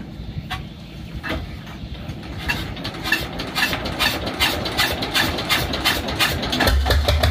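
Tianli 1130 single-cylinder diesel boat engine running, a regular knocking beat that gets quicker and louder; a deep steady hum joins near the end.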